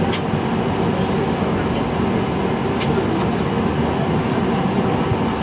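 Steady hum and rumble inside the cabin of a Boeing 777-300ER on the ground, with a few faint clicks.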